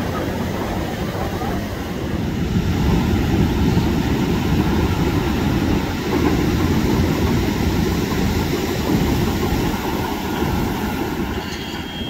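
Ocean surf breaking and washing around, a steady low rumble without a clear engine note.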